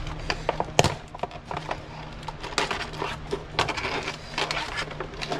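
A horn kit's packaging and parts being handled: a quick, irregular run of clicks, crinkles and rustles as the pieces are taken out and moved about, over a low steady hum.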